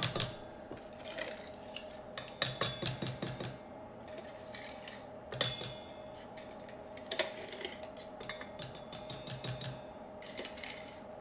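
Wire whisk scraping and tapping against the inside of a metal can of pumpkin puree and a stainless steel mixing bowl, in irregular bursts of clicks and clatters.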